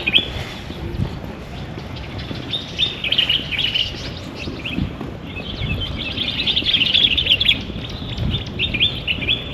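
Small birds chirping in rapid, overlapping bursts, densest about three seconds in and again through the second half.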